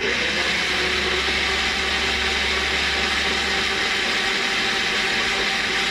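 Electric blender running steadily at high speed, pulping lemons and lime with water and sugar into juice; it comes back on right at the start after a brief drop.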